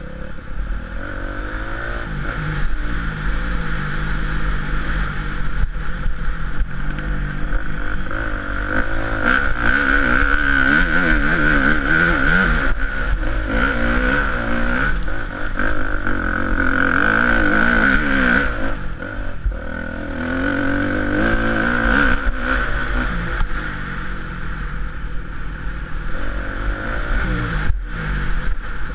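Motocross bike engine revving up and falling back again and again as the rider accelerates and shifts along a dirt track, loudest around the middle, with rattling and a steady low rumble of wind on the microphone.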